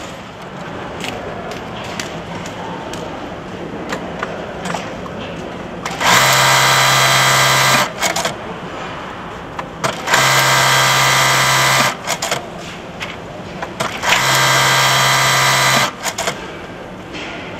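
Juki computer-controlled buttonhole machine running three sewing cycles. Each is a steady hum of about two seconds that starts and stops abruptly, with a few seconds of lower background noise and light clicks between them.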